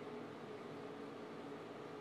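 Quiet room tone: a steady, even hiss with a faint constant hum, and no distinct event.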